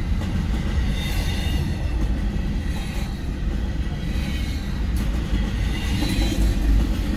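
Double-stack container cars of a Norfolk Southern intermodal freight train rolling past at a grade crossing: a steady low rumble of steel wheels on rail, with faint higher wheel squeals coming and going.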